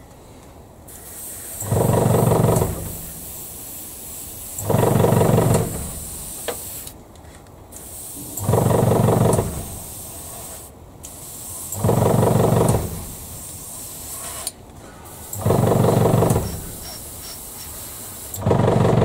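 Airbrush spraying paint, a steady airy hiss that stops briefly a few times. Over it, the small airbrush compressor's motor switches on for about a second roughly every three and a half seconds, six times; these runs are the loudest sound.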